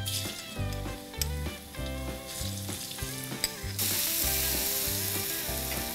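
Chopped garlic sizzling in hot oil in a steel wok. The sizzle gets suddenly louder and fuller about four seconds in.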